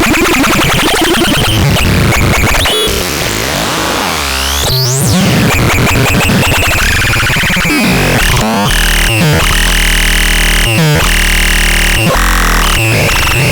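Electronic synthesizer playing harsh, noisy music: dense buzzing textures with a wavering high tone, a fast sweep up and back down in pitch near the middle, and stretches of thick buzzing drone over a low bass.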